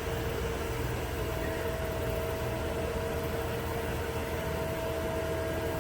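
A steady mechanical hum over an even hiss and low rumble, with a couple of faint constant tones and no change in level.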